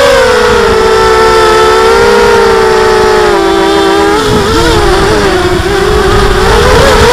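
Diatone mini quadcopter's electric motors whining steadily in flight. The pitch eases slightly lower, then wavers up and down from about four seconds in as the throttle changes, with a low rushing noise underneath.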